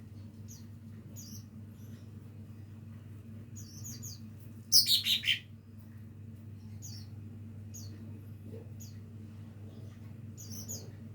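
Green leafbird (cucak ijo) practising its song: short high chirps about once a second, with one loud run of four quick notes falling in pitch about five seconds in. A steady low hum runs underneath.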